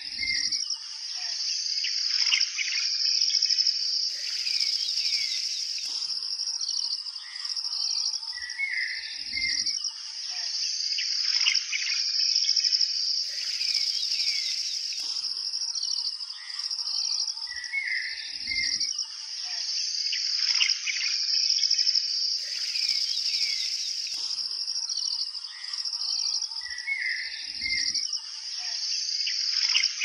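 Nature-sound track of insects chirping in a steady high, pulsing drone with bird calls and chirps over it, and a brief hiss now and then. The same pattern repeats about every nine seconds, as a loop.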